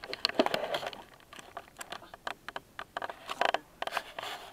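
Handling noise close to the microphone: an irregular run of sharp clicks, knocks and scrapes as the camera and gear are picked up and moved about.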